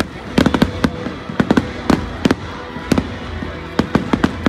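Aerial firework shells bursting overhead: a dozen or so sharp bangs in quick, irregular clusters, over a steady low rumble.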